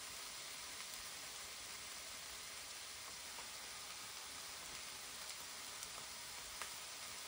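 Frozen lamb chops sizzling faintly inside a closed Tefal OptiGrill Elite contact grill: an even hiss with a few small pops in the second half.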